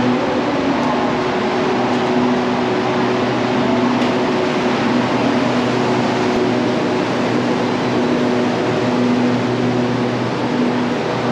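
Steady mechanical hum of a stationary passenger train's air-conditioning and power equipment, with a few steady low drone tones under an even whooshing noise.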